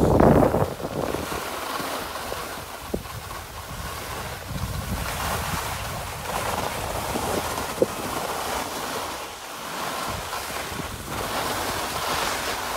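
Skis sliding over groomed snow, with wind rushing across the microphone in gusts. Two short sharp clicks, about 3 and 8 seconds in.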